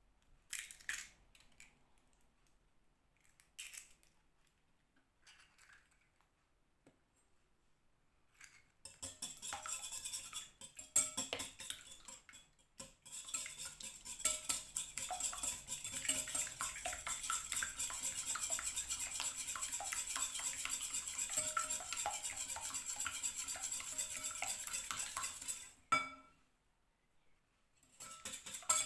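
A few scattered taps, then from about nine seconds in a wire whisk beats eggs in a glass bowl: fast, steady clinking and scraping of metal against glass. It stops briefly near the end, then starts again.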